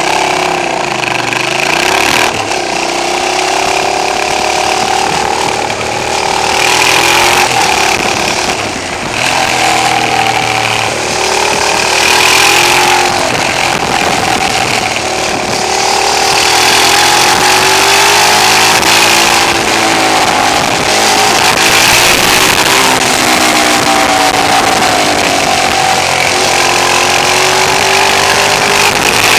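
Twin-cylinder motorcycle engine running under way, its pitch rising and falling over and over with throttle and gear changes, under heavy wind rush. The camera's audio is set too loud, so the sound is harsh and distorted.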